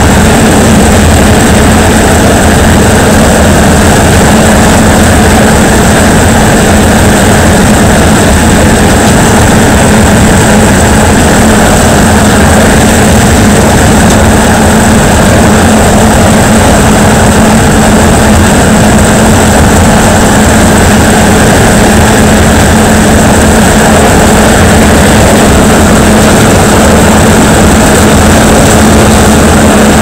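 4YZ-6 corn combine harvester running, its engine and header drives making a loud, steady mechanical drone with a constant hum and a thin high whine over it.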